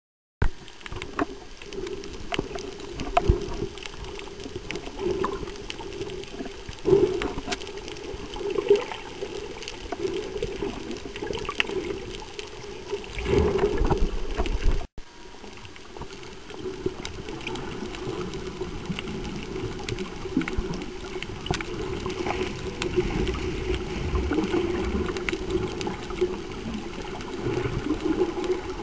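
Underwater sound picked up through a camera's waterproof housing: steady gurgling and sloshing water with scattered small clicks, and a louder rushing surge a little before the middle. The sound drops out for an instant near the middle.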